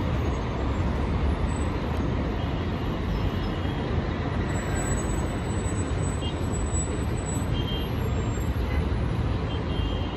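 Steady noise of jammed road traffic: buses, trucks and cars idling and creeping in a queue, with a constant low rumble.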